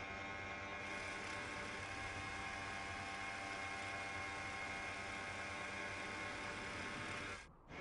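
Steady buzzing hum made of many held tones over a faint hiss, dropping out briefly near the end.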